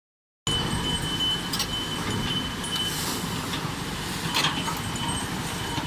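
SANY crawler excavator's diesel engine running steadily beside a fast-flowing river, with the rush of the water mixed in and a thin steady whine above. A few short sharp knocks come from the bucket working in the water, the loudest about four and a half seconds in.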